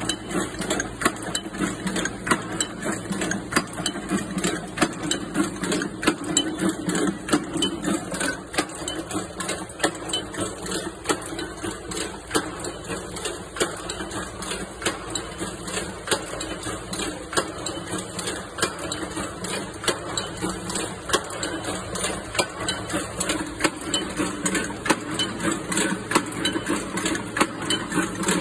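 Automatic steel chain-link forming and welding machinery running: a rapid, rhythmic metallic clatter as wire is bent and closed into links. The lower tone of the running shifts slightly for a stretch in the middle.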